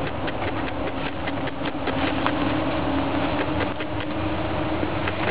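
A small engine running steadily at one pitch, with scattered short clicks over it.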